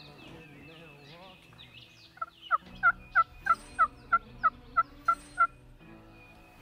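A series of about ten loud turkey yelps, about three a second, starting about two seconds in. Small birds chirp before the yelps.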